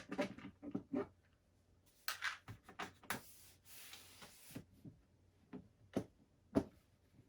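Handling of a plastic drill bit case and its packaging: scattered clicks and knocks, with a short rustle about three seconds in.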